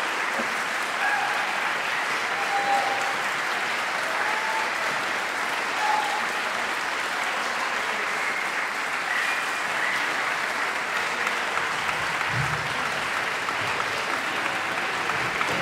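Concert audience applauding steadily, a dense even clatter of many hands, with a few short shouts scattered through it.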